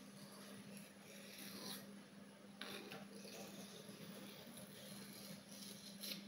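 Kitchen knife blade being drawn by hand across a sharpening stone: faint, repeated scraping strokes, each a second or so apart.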